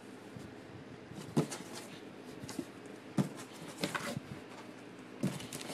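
Scattered knocks and scrapes against a cardboard box as a cat shifts about inside it, five or so short sounds spread across a few seconds.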